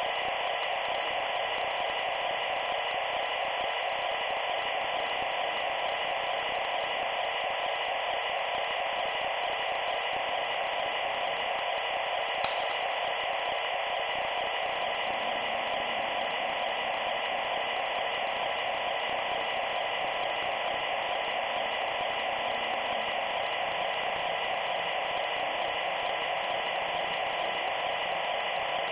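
Steady static-like hiss throughout, with a single faint click about twelve seconds in.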